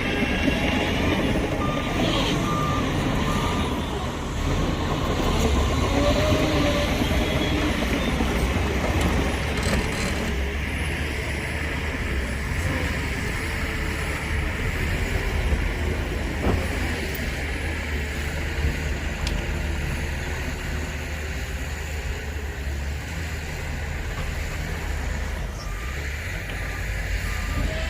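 Heavy diesel dump trucks and earthmoving machines running, a steady low rumble, with a reversing alarm beeping near the start and again near the end.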